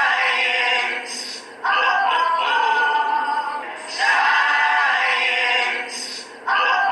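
A programme jingle: voices singing a short two-part phrase with held notes, with a brief gap every two seconds or so. The pair of phrases repeats about every five seconds, as a loop.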